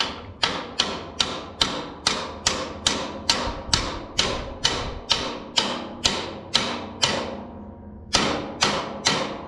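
Hammer striking a metal part with a ringing clang, about two blows a second: a steady run of some seventeen blows, a pause, then three more near the end. The part is being driven into place because it would not line up.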